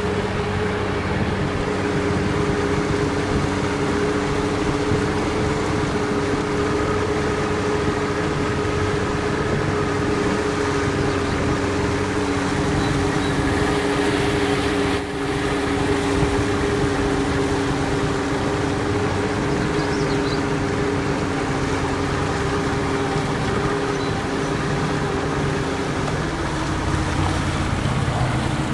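Small boat motor running at a steady speed: an even hum with a constant note whose pitch shifts slightly near the end.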